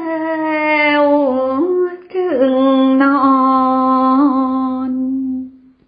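A woman chanting Thai verse in the traditional melodic recitation style, drawing out the closing words in two long held notes that step slowly in pitch. The second note fades out just before the end.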